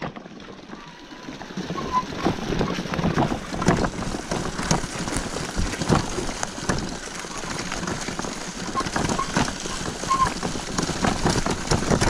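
Loaded touring bicycle rolling down a rough, overgrown dirt trail, heard through its handlebar-mounted camera: continuous rattling and clattering of the bike and its bags over bumps. Short squeaks from the brakes about two seconds in and again near ten seconds.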